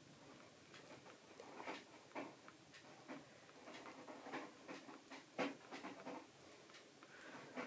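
Kitten suckling milk from a nursing bottle: faint, irregular sucking and smacking clicks, a few louder ones around the middle.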